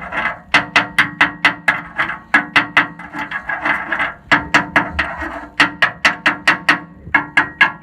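Hammer striking the steel of a bush hog, rapid repeated blows about four a second, each one ringing, with a few short pauses in the run.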